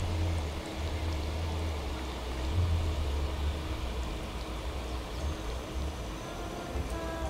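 Outdoor wind at an open lakeshore: a low, uneven rumble of wind buffeting the microphone over a steady rushing hiss.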